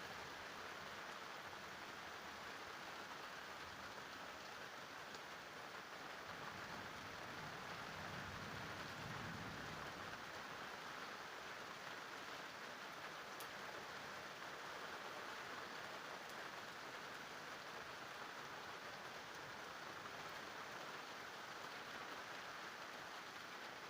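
Steady rain falling, with a low rumble that swells and fades about eight to ten seconds in.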